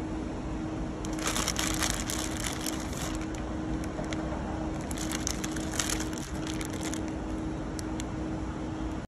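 Thin clear plastic bag crinkling as it is handled, in two spells of crackling, about a second in and again from about four and a half to seven seconds, over a steady low hum.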